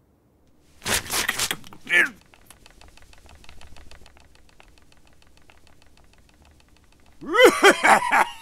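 An old man laughing heartily in repeated bursts from about seven seconds in, after a short rustle of paper about a second in.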